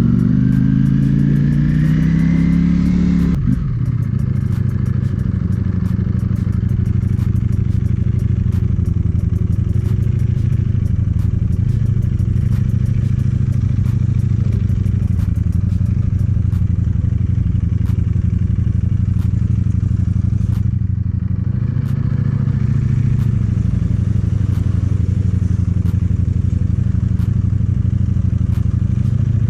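Ducati Panigale V4S's V4 engine under way. It revs up over the first three seconds, drops sharply at a gear change, then runs at a steady pace, easing off briefly about two-thirds of the way through before picking up again.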